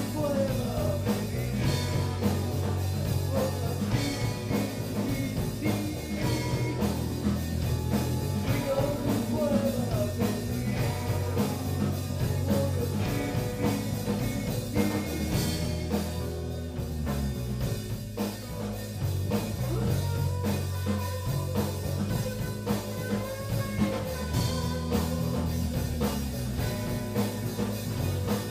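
Rock band playing live: electric guitars, bass guitar and drum kit, with a wavering melody line over the top.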